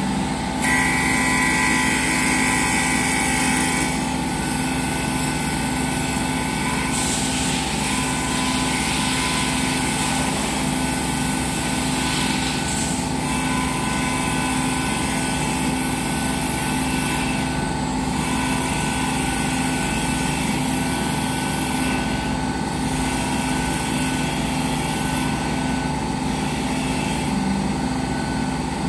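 Small CNC wood lathe running steadily while its automatic cutter turns a spinning wooden workpiece. Several stretches of louder, hissier noise a second or two long come as the cutter works the wood.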